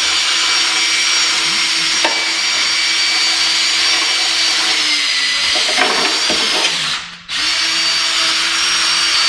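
Handheld electric power tool running with a steady motor whine while taking rust off metal; it stops for a moment about seven seconds in and starts again.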